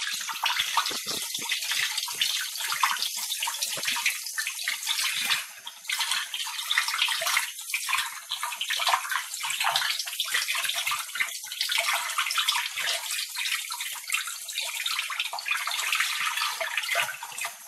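Water running from a bathroom sink tap and splashing over an arm and hands as they are rubbed and rinsed, a steady hiss with small rises and dips as the arm moves in the stream.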